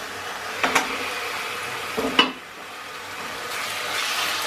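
Raw boneless chicken pieces going into a pan of hot oil with chopped onion, garlic and green chilli and sizzling, with two pairs of sharp knocks against the pan, the loudest about two seconds in. The sizzle grows louder near the end as the chicken is stirred with a silicone spatula.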